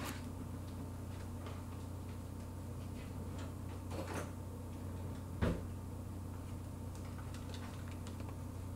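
Quiet room tone with a steady low hum, broken by a few faint knocks. The sharpest knock comes about five and a half seconds in, like a door or drawer somewhere off in the house.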